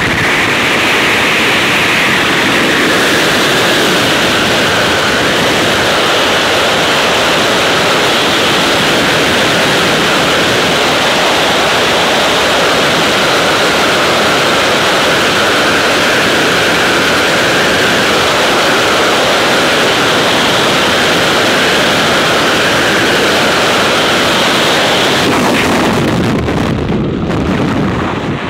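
Freefall wind rushing over a skydiver's helmet-camera microphone, a loud steady roar. Near the end it thins and falls away as the parachute opens.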